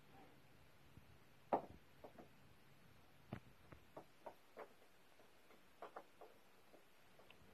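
Faint, scattered taps and knocks of two long-haired cats' paws and bodies hitting the rug and floor as they wrestle and swat at each other, about a dozen in all, the loudest about one and a half seconds in.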